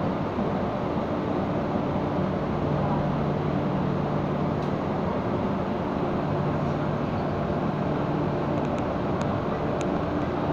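Inside an MTR M-Train electric metro car while it runs: the steady rumble of wheels and running gear with an even low hum, and a few faint clicks near the end.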